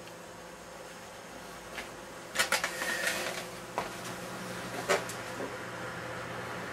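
Desktop PC running in an open case: steady hum from its case fans and CPU tower-cooler fan. A few sharp clicks and knocks come about two and a half, four and five seconds in.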